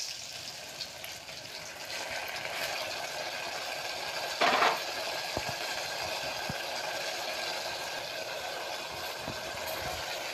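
Chopped onions and spices frying in hot oil in a pot: a steady sizzle, with one short louder rush about four and a half seconds in and a few light knocks.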